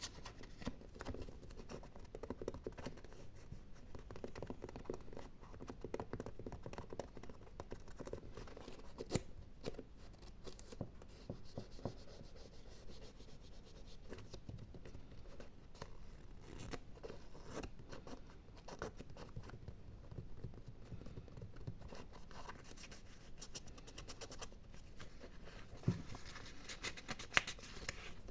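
Close-up ASMR scratching and gripping on an object at the microphone: a dense, continuous run of small scratches and clicks, with a couple of sharper clicks near the end.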